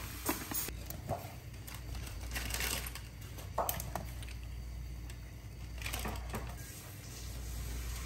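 Scattered light clicks and scrapes of a cooking utensil against a pan, over a faint steady hiss.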